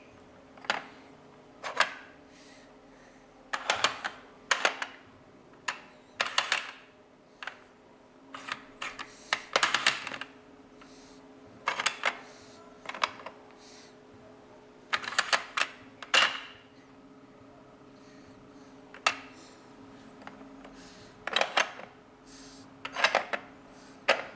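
Hard plastic puzzle pieces of a sliding-car traffic-jam puzzle clicking and clacking as they are pushed along and knocked against the plastic grid board. The clicks come at irregular intervals, some single and some in quick clusters, over a faint steady hum.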